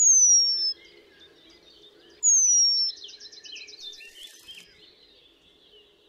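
Male Eurasian penduline tit calling: two loud, thin, high whistles that slide downward, about two seconds apart, the second followed by a quick trill of short high notes. It is the male's call to draw a female to his finished nest. Softer twittering runs beneath.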